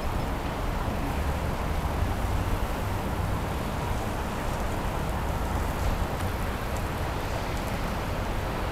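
Steady outdoor city background noise: a low rumble with a hiss over it and no distinct events.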